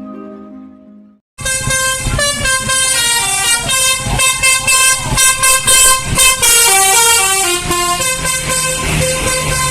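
Tour bus 'telolet' multi-tone air horn playing a quick tune of stepping notes over the low rumble of the bus. It cuts in abruptly about a second in and keeps playing.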